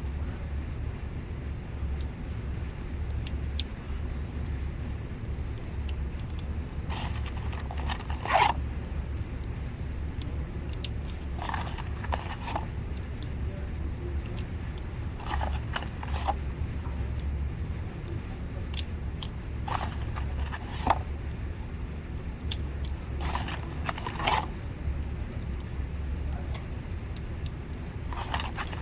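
Pistol cartridges being pressed one by one into a magazine: short scraping clicks in small groups every few seconds, over a steady low hum.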